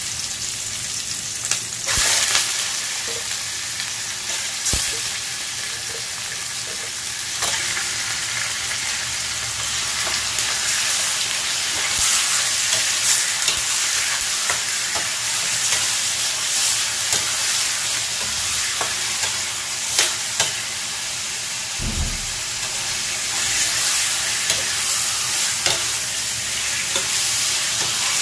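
Raw chicken pieces sizzling in hot oil with garlic and onion in a stainless steel wok, a steady frying hiss. A metal spatula scrapes and knocks against the pan now and then as the chicken is stirred.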